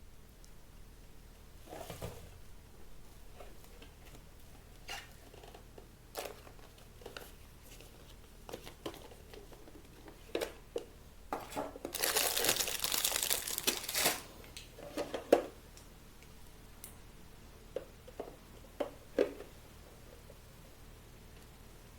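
Handling noises: scattered light clicks and knocks, with about two seconds of crinkling, rustling noise near the middle.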